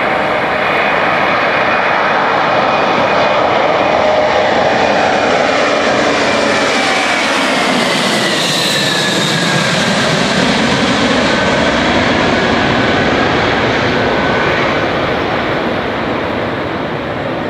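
Airbus A319neo jet airliner passing close by, its engine whine sweeping down in pitch as it goes past and then easing off near the end.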